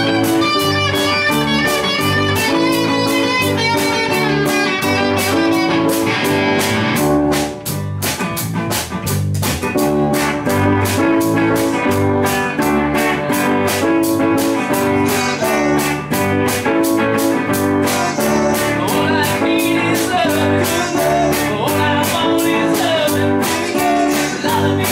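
Live band playing an instrumental passage: electric guitar over bass guitar and a drum kit keeping a steady beat. The band drops briefly quieter about eight seconds in, then picks back up.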